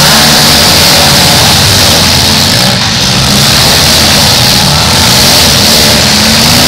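Several demolition derby car engines running and revving at once, loud and continuous.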